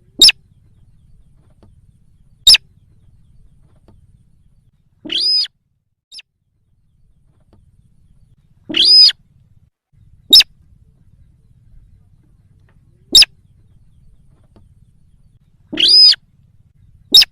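Recorded bird-lure call of the rice-field sintar: sharp, very short notes a few seconds apart, alternating with three longer ringing calls of about half a second each. A faint low hum lies underneath.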